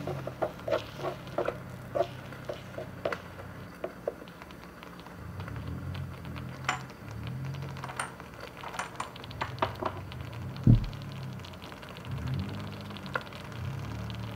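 Small wooden spatula stirring and knocking against a miniature aluminium wok of tomato-sardine sauce: a quick run of light knocks in the first few seconds, then scattered light clinks, and one louder low thump about two-thirds of the way through.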